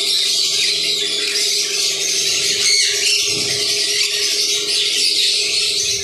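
Many caged conures screeching and squawking together in a dense, unbroken chorus of shrill calls. A faint steady hum runs underneath.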